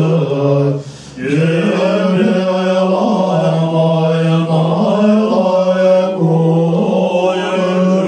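Tibetan Buddhist monks chanting in unison: a steady low drone on one held pitch with small upward steps, broken by a short breath pause about a second in.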